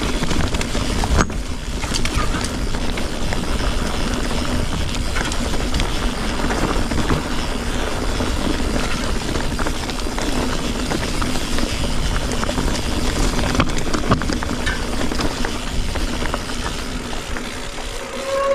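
Full-suspension mountain bike on Maxxis Forekaster 29x2.20 tyres riding a stony, broken trail: steady rolling noise with frequent small knocks and rattles as the wheels go over rocks.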